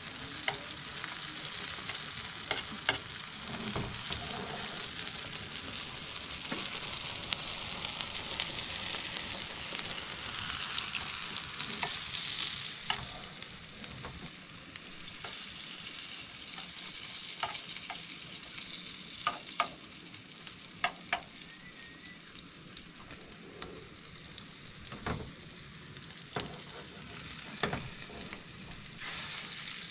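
Food sizzling as it fries in a pan, with sharp knocks and scrapes of a utensil stirring it. The sizzle is fainter in the second half.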